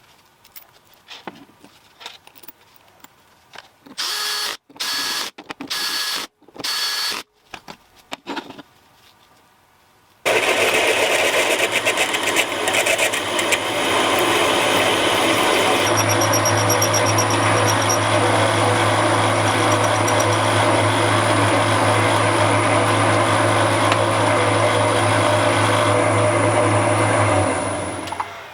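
A power tool started in three short bursts, then running continuously and loudly for about seventeen seconds, a steady low hum joining partway through, before it winds down near the end.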